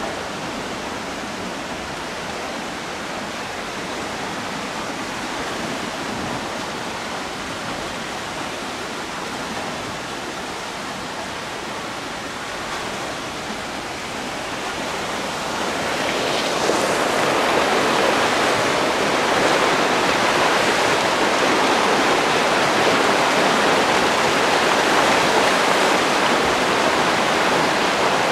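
River water rushing: a steady, even rush that swells louder about halfway through and then holds.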